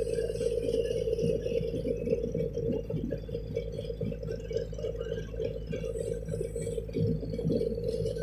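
A ship's engine droning steadily while under way, with irregular rumbles of wind on the microphone.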